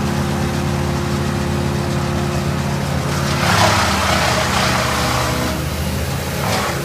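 Engine of tree-removal equipment running steadily at a constant pitch. About three seconds in, a loud rushing noise rises over it for about three seconds, then falls away.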